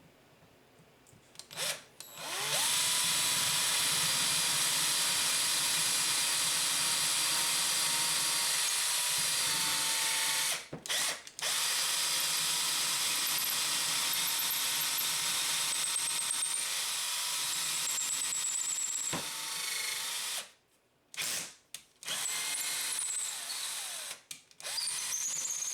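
Electric power drill boring the mounting holes for a reloading press, its motor spinning up to a steady whine a couple of seconds in. It breaks off briefly, stops again for a moment, and then runs again near the end.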